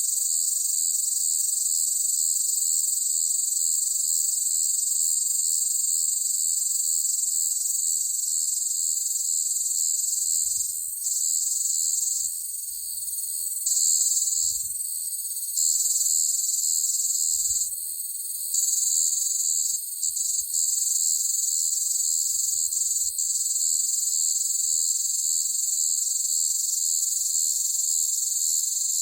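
Cicadas buzzing loudly, a steady high-pitched drone. Between about a third and two thirds of the way through, the buzz briefly dips and swells back several times.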